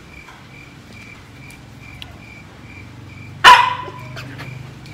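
Siberian husky puppy giving one sharp, loud bark about three and a half seconds in.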